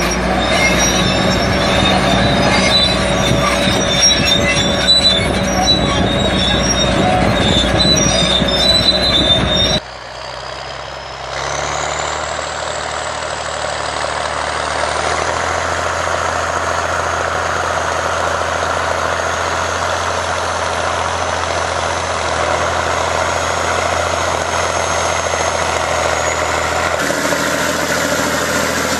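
Heavy crawler bulldozer running under load, with a steady high metallic squeal and clatter over the engine rumble. About ten seconds in, the sound cuts to another machine's steady engine drone with a high whine that rises and then holds.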